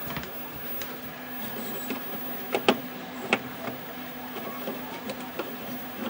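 Scattered sharp clicks and taps of hands working on a powered-up tube TV chassis, over a steady faint hum; two louder clicks come about two and a half and three and a half seconds in.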